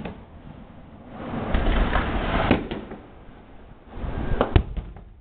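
Aerial fireworks going off: two sharp bangs about two seconds in and two more near the end, each within a swell of low rumble.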